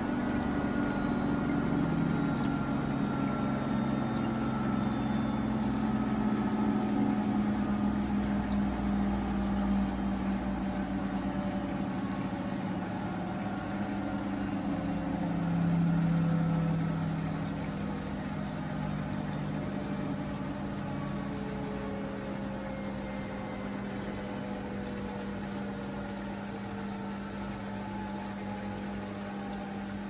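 Hoover H3W69TME (H-Wash 300) washing machine drum and motor spinning down smoothly from a 1600 rpm final spin. Its whine falls steadily in pitch and fades, with a brief louder hum about halfway through.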